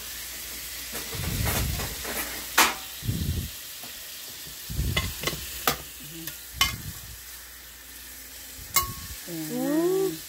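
Ribeye steak sizzling as it sears in a hot pan, a steady high hiss, with several sharp clinks and knocks of a utensil against the pan.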